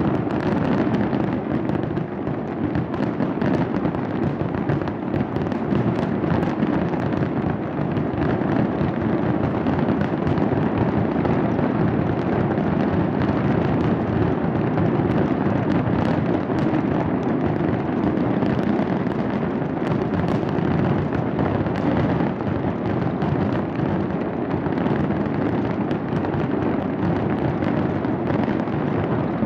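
A large fireworks display fired from a skyscraper and nearby rooftops: a dense, unbroken barrage of bangs and crackling that runs together into one continuous wash of sound.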